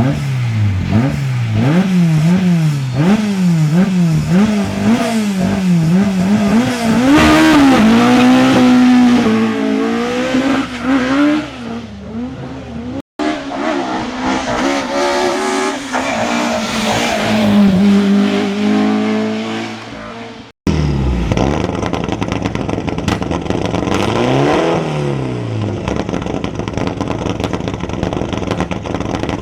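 Hill-climb race car engines revving hard, the pitch climbing and dropping quickly over and over through gear changes and lifts. The sound cuts abruptly twice, about 13 and 20 seconds in, each time to another car running up the hill.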